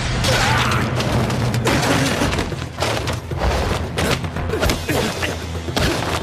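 A hand-to-hand fight: a rapid, irregular series of hits, thuds and crashes, with a dramatic music score running underneath.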